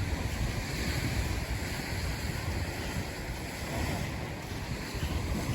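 Wind gusting across the microphone over a steady rush of lake waves breaking on the shore.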